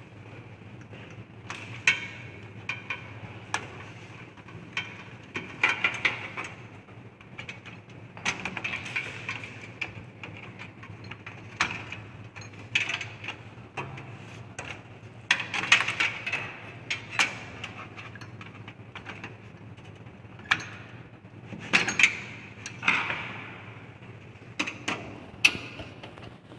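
Hands working on a desktop computer case as it is taken apart: irregular clicks, knocks and rattles of metal and plastic parts and cables being handled, over a steady low hum.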